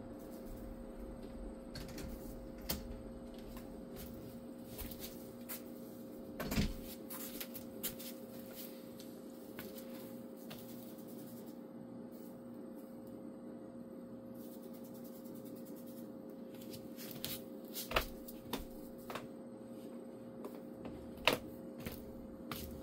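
A steady low hum with a few scattered clicks and knocks. The loudest knocks come about a third of the way in and twice near the end.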